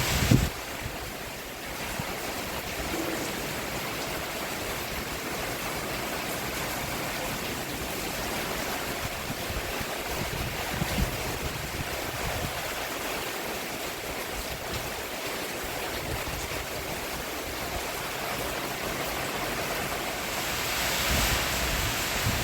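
Steady rain falling on a roof, an even hiss with a brief low thud near the start and another about halfway through. It eases in the first couple of seconds and swells slightly again near the end.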